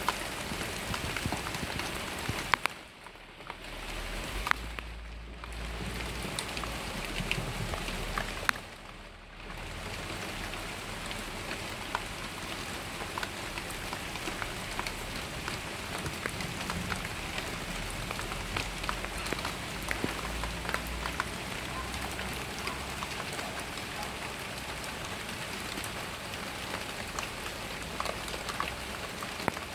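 Heavy rain falling steadily, with many sharp ticks of drops striking a nearby surface; it eases briefly a few times in the first ten seconds.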